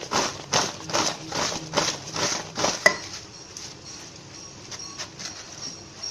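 A metal spoon scraping and turning french fries in a pan of frying oil, about two strokes a second, ending with a sharp metal clink about three seconds in; after that only quieter, scattered sounds.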